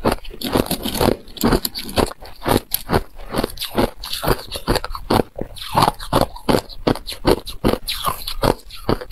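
Thin sheets of clear ice crunching and crackling as they are chewed and handled: a rapid, irregular run of sharp cracks.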